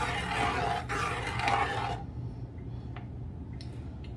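Metal spoon stirring and scraping in a large stainless pot of simmering pork souse. The scraping stops suddenly about two seconds in, leaving a quieter stretch with a few light clicks.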